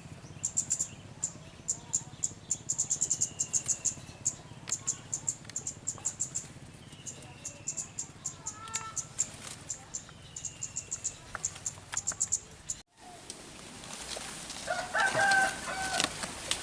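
Birds calling: rapid runs of very high, short chirps with a short falling whistle repeated every few seconds. After a brief break about 13 s in, louder clucking calls like a chicken's come in near the end.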